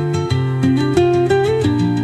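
Background music led by plucked guitar over a steady beat.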